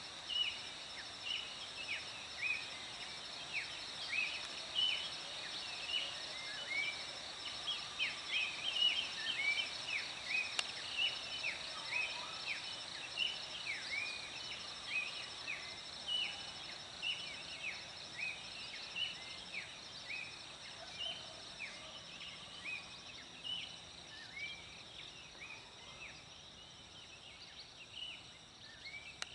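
A chorus of forest birds gives many short, downward-sweeping chirps, several a second, over a steady high-pitched drone of insects. The chirping is densest in the first half and thins out near the end.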